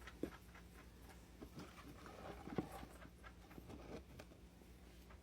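Near silence with faint scattered clicks and light knocks of small hand handling, as of measuring out a capful of nitromethane fuel; the chainsaw is not running.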